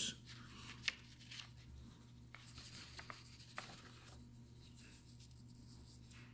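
Quiet room tone: a faint, steady low hum with a few soft clicks and rustles, the clearest just before one second in.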